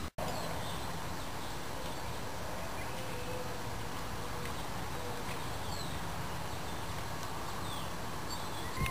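Steady outdoor background hiss with a few faint, brief bird chirps.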